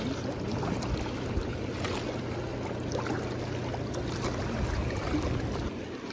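River water rushing steadily, with a low hum underneath that drops away near the end and a few faint clicks.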